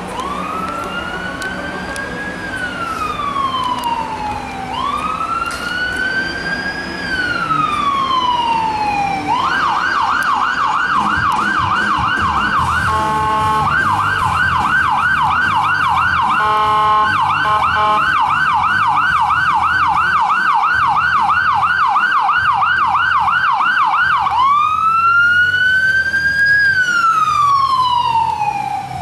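Emergency vehicle siren. It sounds a slow rising and falling wail, switches about nine seconds in to a fast yelp of several sweeps a second, is broken twice by a short steady horn tone, and returns to the slow wail near the end.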